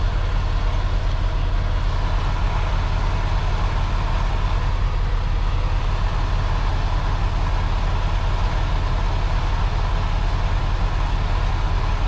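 Semi-truck's diesel engine idling steadily: a deep, even rumble with a faint steady whine above it.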